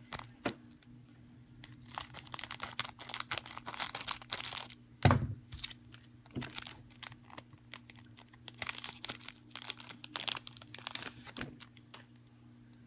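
Pokémon booster pack's foil wrapper crinkling and tearing as the pack is ripped open, in two spells of rustling with a single sharp knock about five seconds in.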